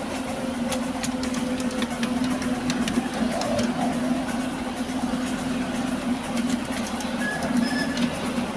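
Ride-on miniature railway train running along its track, heard from aboard a passenger car: a steady rumble of wheels on rail with scattered light clicks.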